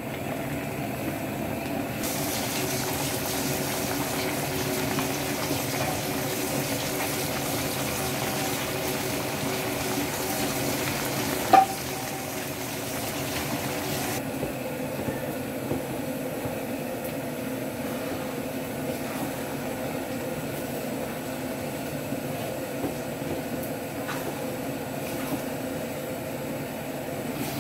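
Rice vermicelli frying and sizzling in a wok over a gas burner as a wooden spatula stirs it, over a steady low hum. The sizzle is fuller for the first half and eases about halfway, and one sharp knock comes near the middle.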